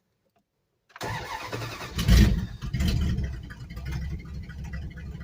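A 1991 Dodge Dakota's 318 V8, running with its exhaust cut off, starts about a second in, revs once, and settles into a steady idle.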